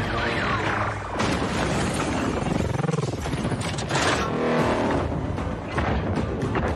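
Film battle sound effects of giant robots fighting: heavy booms, crashes and metallic impacts layered over a music score, with clusters of sharp hits about a second in, around four seconds in and near the end.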